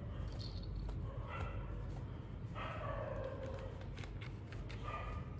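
Kittens meowing three times: a short mew about a second in, a longer and louder one with falling pitch around the middle, and another short one near the end. Light clicks sound in between.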